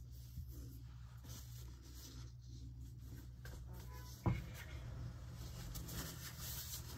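Faint scratchy rustling of hands handling things on a kitchen countertop, with a single knock about four seconds in, over a low steady hum.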